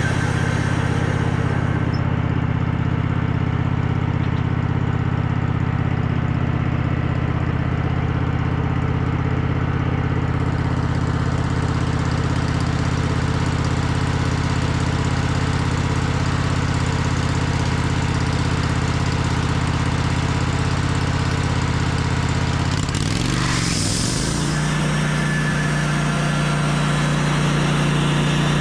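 Portable sawmill's engine running steadily through a cut in a black walnut log. About 23 seconds in the engine note wavers and shifts, with a brief hiss, then runs steadily again at the new note.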